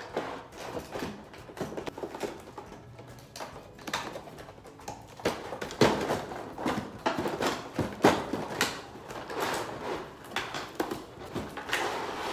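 Cardboard box and its packaging being handled: irregular rustling and scraping with sharp knocks, the loudest about six and eight seconds in.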